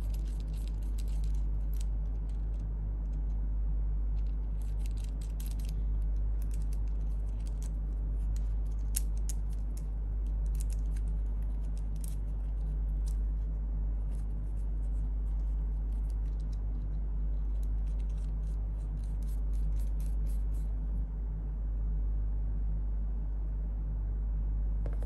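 Small metal parts of a ligature and its booster clicking and scraping in the fingers as they are handled and fitted together, in scattered clusters of tiny clicks. A steady low hum runs underneath.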